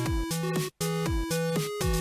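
Background music: an upbeat electronic tune with a steady beat, a bass kick on each beat and short bright synth notes.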